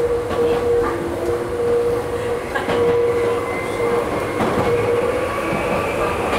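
Tokyu Oimachi Line electric train running, heard from inside the front cab: a steady hum with a higher whine that slowly rises in pitch, and wheels clicking over rail joints and points.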